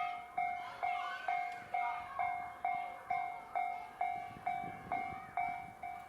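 Japanese level-crossing warning bell ringing in a steady, even rhythm, about two dings a second, each a two-tone ring that fades before the next. It is the sign that the crossing barriers are down and a train is approaching or passing.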